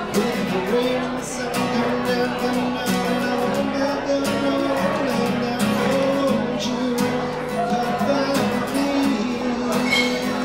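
A man singing a song to a steadily strummed acoustic guitar.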